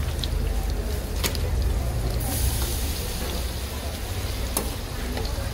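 Battered squid deep-frying in a round pan of hot oil: a steady sizzle that gets louder about two seconds in, with a couple of light clicks.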